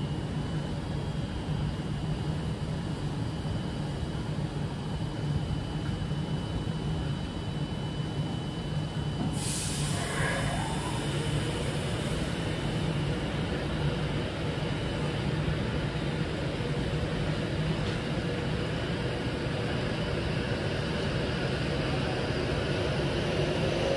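Long Avanti West Coast electric passenger train rolling slowly past, a steady rumble of wheels on rail with a thin high squeal. About ten seconds in comes a sudden hiss lasting about a second.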